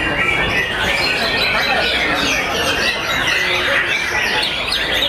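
Many white-rumped shamas singing at once: a dense, unbroken chorus of overlapping whistles, trills and chattering calls.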